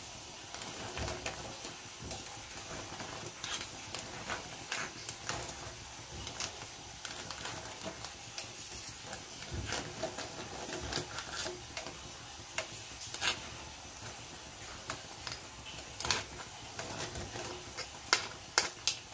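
A stainless steel pot of clams and fish at a rolling boil, with irregular light clicks and taps throughout and a faint steady high whine behind them.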